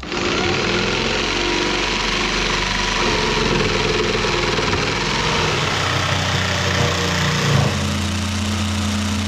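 Electric jigsaw cutting a curve through a white-faced particleboard panel, the motor and reciprocating blade running steadily.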